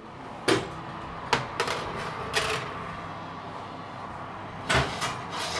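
A scatter of sharp metallic clatters and knocks as the pastry tray of soufflé moulds is handled and put into the oven, loudest about half a second in and near the end.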